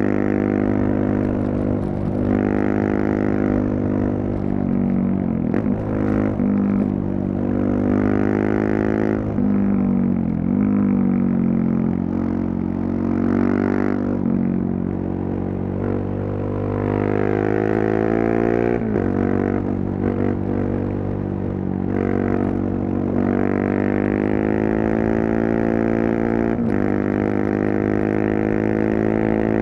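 KTM 690 Duke's single-cylinder engine through a Leovince decat and slip-on exhaust, ridden hard: the pitch climbs under acceleration, then drops sharply at each gear change, several times over, with stretches of easing off before it pulls up again.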